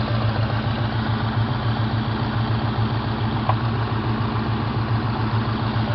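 1998 Ford Mustang's 4.6-litre V8 idling steadily, with one faint click about three and a half seconds in.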